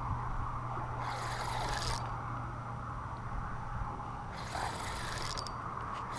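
Spinning fishing reel being cranked to wind in line, a steady scraping rasp with rubbing of hand and sleeve against the rod and camera; a higher hiss comes and goes twice.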